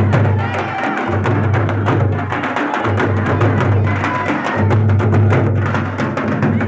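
Live folk drumming on nagara and barrel-shaped hand drums, beaten in a fast, steady rhythm.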